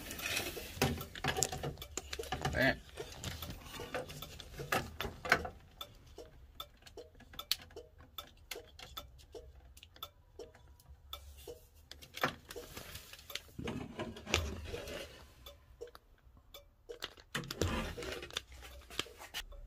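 Irregular clicks, taps and light rattles of hands handling a switch and wiring connectors under a car's steering column, with a busier run of knocks in the first few seconds and again near the end.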